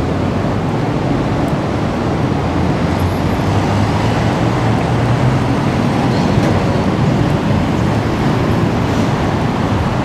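Steady street traffic noise, with an engine hum from a passing vehicle swelling in the middle.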